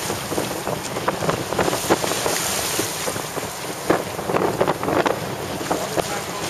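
Wind buffeting the microphone over choppy sea, with water splashing and slapping in many short irregular hits against a small boat's hull.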